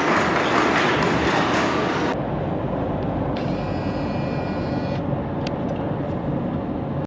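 Steady rumble of a moving vehicle. The sound changes abruptly about two seconds in.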